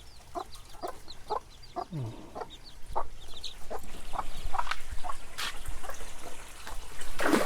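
Chickens clucking: short, repeated clucks about twice a second at first, then more irregular calls, with small high chirps mixed in.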